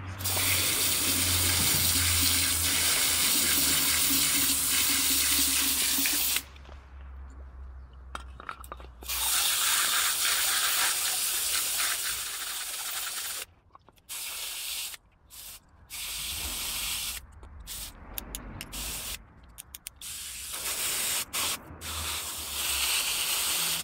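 Garden hose spray nozzle jetting water onto a Toyota 4A-GE throttle body and the paving stones around it, rinsing off the cleaner that was left to soak in. It sprays steadily for about six seconds, again for about four seconds, then in a string of short on-off bursts.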